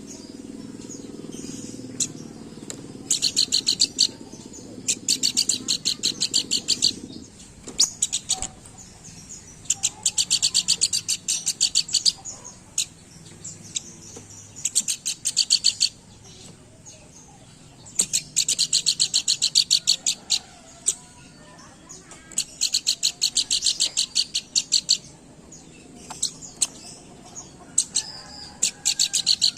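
Pelanduk bukit singing vigorously: repeated bursts of fast, high, rapid-fire trilling notes, each burst lasting one to two seconds, with short pauses between.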